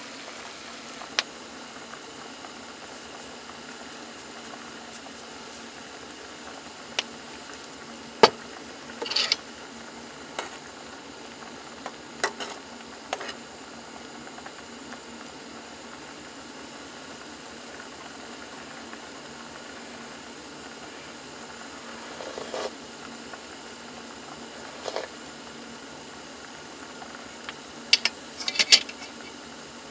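Food sizzling and simmering in a pan, a steady low hiss, with a few sharp taps and clicks scattered through and a cluster near the end.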